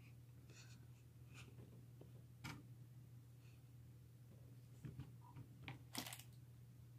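Near silence: a low steady hum of room tone, with a few faint clicks and taps from handling a ring light and its tripod parts, once about two and a half seconds in and a few more near the end.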